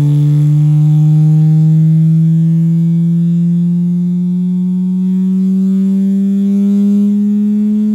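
Aiwa 5.25-inch woofer in a small cardboard box playing a low bass test tone that glides slowly and steadily upward in pitch, with strong overtones.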